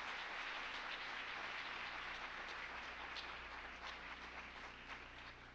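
Audience applause, a dense patter of clapping that fades away toward the end.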